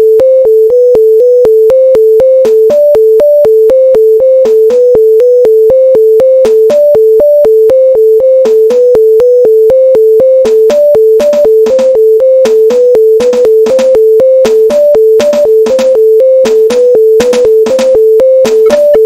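Electronic synthesizer music made in LMMS: a fast, even figure rocking between two close notes, with drum-machine hits laid over it.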